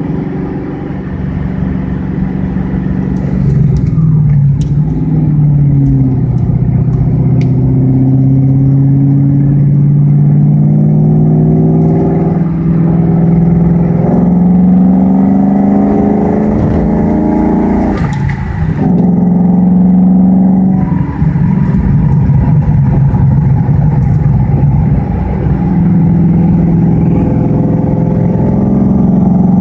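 Audi A6 4.2 V8 with a custom exhaust running loud under way. The engine note dips, then climbs slowly in pitch for several seconds as the car accelerates, breaks off briefly about 18 seconds in, and climbs again.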